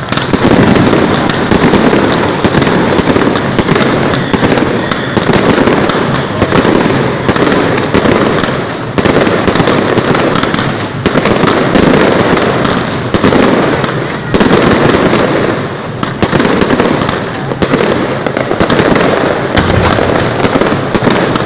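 Aerial fireworks display: a dense, unbroken barrage of shells going off, with many sharp bangs and crackling. The noise swells in loud surges about every two seconds.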